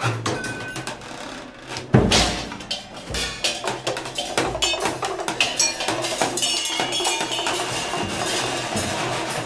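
Free-improvised percussion duet on drums and small percussion: scattered sharp strikes, a heavy hit with a low thud about two seconds in, then a dense flurry of rapid clicks and ticks with brief metallic ringing.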